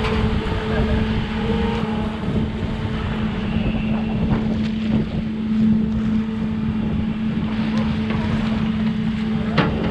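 Boat engine running steadily with a constant low hum, with wind on the microphone and a few faint knocks.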